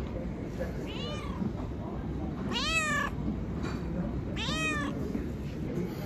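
A cat meowing three times, the first call faint and the other two louder, each rising and then falling in pitch, over a steady low background hum.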